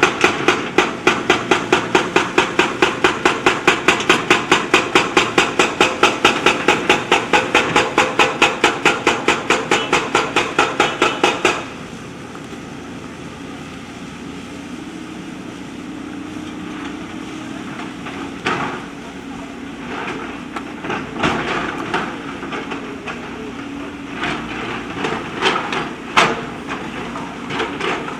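JCB backhoe loader at work: a rapid, even hammering of about five blows a second that stops abruptly about twelve seconds in. After it, the machine keeps running with scattered knocks, more of them near the end.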